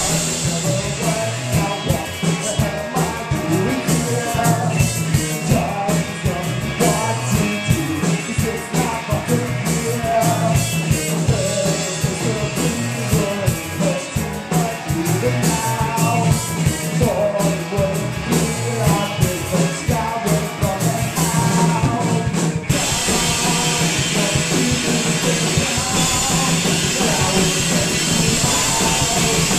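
Indie rock band playing live, with sung lead vocals over electric guitars and a drum kit. About 22 seconds in, the band breaks into a fuller, brighter-sounding section.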